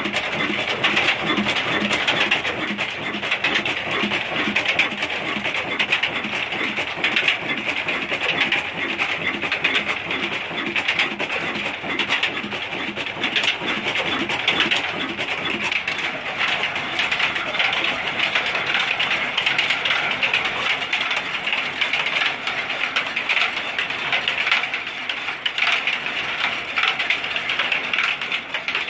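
An old stationary single-cylinder 'black engine' diesel runs an oil expeller through belts, pulleys and a line shaft, making a dense, rapid mechanical clatter of ticks and knocks. A low pulsing beat comes through strongly at first and thins out about halfway through.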